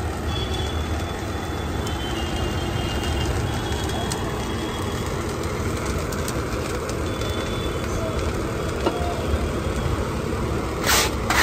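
Steady street-traffic rumble with a few short high horn toots, over the scratching of a scraper stirring rice through hot sand in an iron wok. Near the end comes a louder burst of scraping and rattling.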